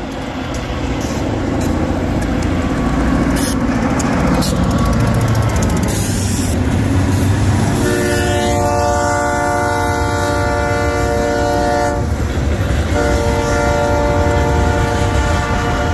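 Great Lakes Central Railroad diesel locomotive approaching and passing close by with its engine running loud, then sounding its horn in two long blasts. The first blast starts about eight seconds in and lasts about four seconds. The second starts about a second after the first ends. Covered hopper cars roll by behind it.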